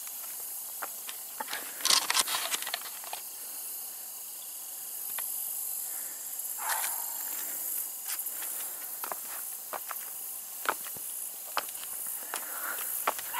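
Footsteps on the wooden ties of a railroad trestle: irregular knocks and scuffs of shoes on timber and gravel, loudest in a cluster about two seconds in, over a steady high hiss.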